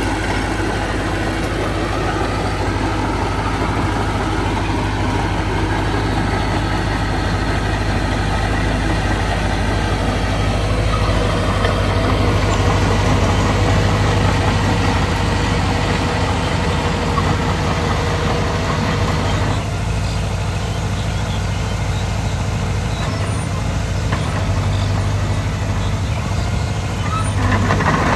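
Heavy diesel earthmoving machinery, bulldozer and dump truck engines, running steadily with a constant low hum. The engine sound changes character about a third of the way in and again past two thirds, as the machines shift load or position.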